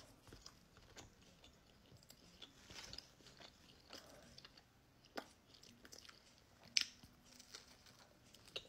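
Faint close-up chewing of a crusty sandwich, with a few sharp crunches of the bread crust, the clearest about five and seven seconds in.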